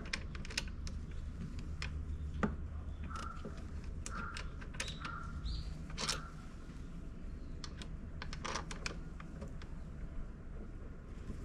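Scattered light clicks and taps of small tools and parts being handled during scooter front-brake work, over a low steady hum.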